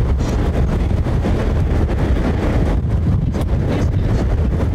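Steady low rumble of a moving vehicle's road and wind noise, with wind buffeting the microphone.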